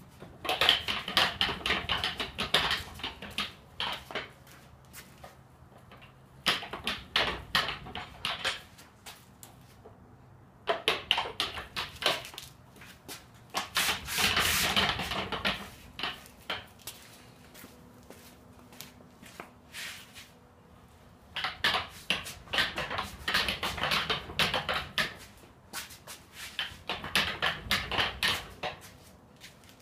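Casters of Harbor Freight car dollies rolling under a car as it is pushed by hand: rapid clicking and rattling in several bursts of a few seconds each, with pauses between.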